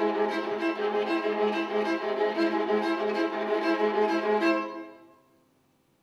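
Bowed viola playing quick, evenly repeated strokes over a sustained low note, stopping short about three-quarters of the way through and ringing away into near silence.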